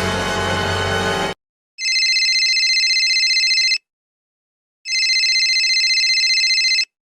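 A music clip cuts off about a second in. Then a telephone rings twice, each ring about two seconds of high, fast-fluttering tones, with a second's pause between.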